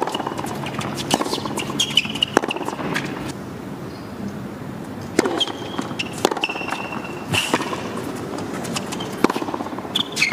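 Tennis on an indoor hard court: sharp racket-on-ball hits and ball bounces spaced a second or more apart, with short high shoe squeaks between them over a low crowd murmur.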